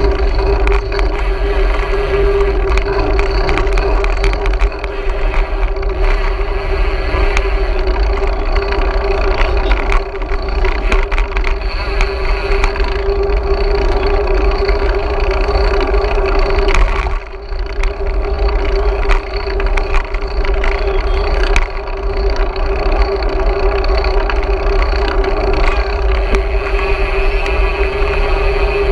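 Wind rushing over the microphone of a camera riding on a moving bicycle: a loud, steady rush with deep rumble and a constant hum. It drops away briefly about seventeen seconds in.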